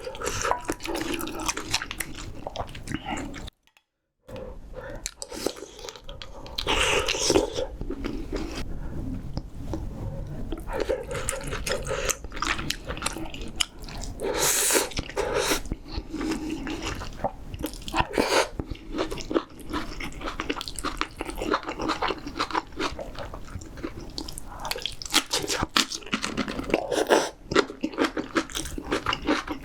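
Close-miked chewing and crunching of spicy seafood ramyeon with shellfish and kimchi: wet mouth clicks and crisp crunches in quick succession. The sound cuts out completely for under a second about three and a half seconds in.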